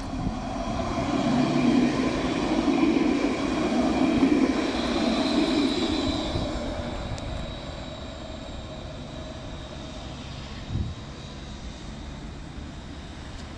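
Alstom Citadis tram passing close by: a steady whine with several tones over a low rumble. It swells over the first couple of seconds and fades away after about six seconds.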